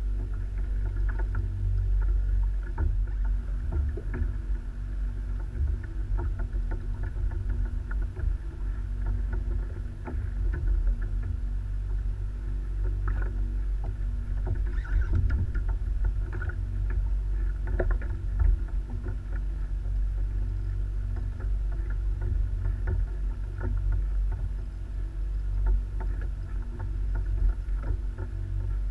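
Water lapping against a kayak hull as a steady low rumble, with scattered light clicks and knocks.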